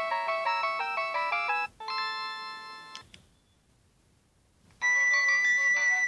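Polyphonic ringtones previewed on a Nokia 6610i through its built-in loudspeaker. A quick run of notes cuts off after under two seconds and a single held chord fades out. After a short silence another tune starts with a bright held high note.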